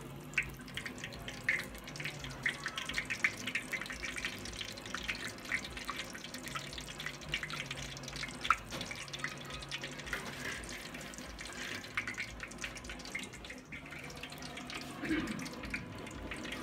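Hot frying oil in an iron karahi crackling with many small pops and drips as a deep-fried potato naan is held above it on a slotted skimmer to drain.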